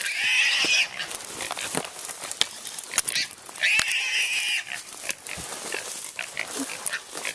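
A hog held by a catch dog squealing: two long, shrill squeals, one at the start and one about three seconds in. Brush crackles in between.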